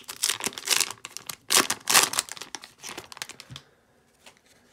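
The wrapper of a 2024 Topps Update fat pack being torn open and crinkled by hand, in a rapid run of loud rustling rips. The tearing stops about three and a half seconds in, with one small click after it as the cards are slid out.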